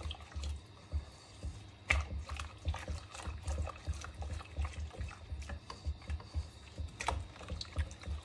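Silicone whisk stirring and sloshing a milk and cocoa mixture in a non-stick saucepan, with irregular soft knocks against the pan and two sharper taps, about two seconds in and about seven seconds in.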